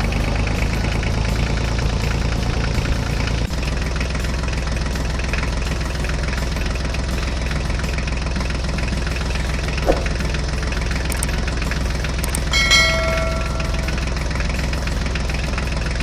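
Tractor engine sound running steadily with a low, even knock. About twelve and a half seconds in, a short high pitched tone sounds for about a second.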